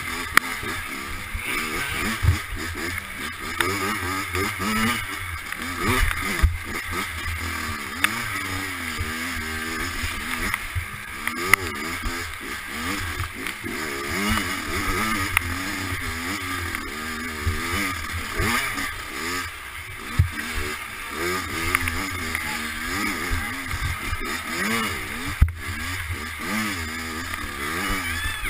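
Dirt bike engine being ridden hard, its pitch rising and falling continuously as the throttle is opened and closed, with a few sharp knocks along the way.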